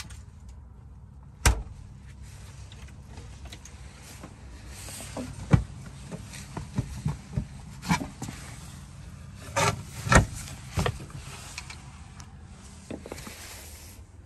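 A small camper fridge door is pushed shut with a sharp thud about a second and a half in. Later come a run of lighter knocks and footsteps along the aisle, over a steady low hum.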